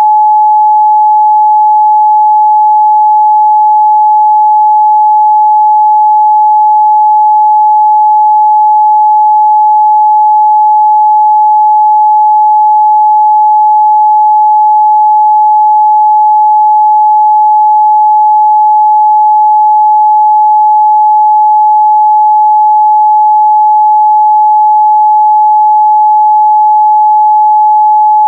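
Continuous 852 Hz sine-wave test tone, one pure steady pitch held at a constant loud level.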